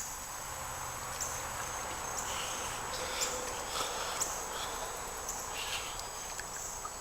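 Insects chirping outdoors: short high chirps about once a second over a steady high-pitched hum, with a soft background hiss.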